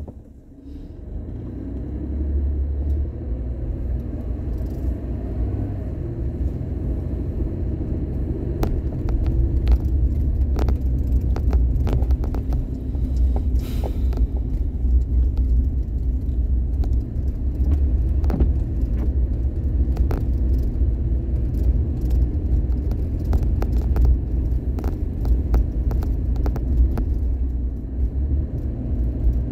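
A car driving: a steady low rumble that builds over the first couple of seconds, with scattered clicks and crackles throughout.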